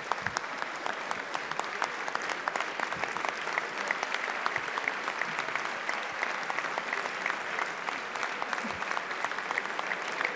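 Dense, steady applause from a large crowd of deputies clapping together.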